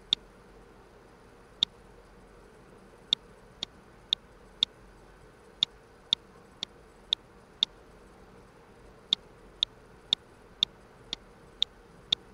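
Computer mouse button clicking, about eighteen sharp single clicks at uneven gaps, a few of them softer, over a faint steady hum.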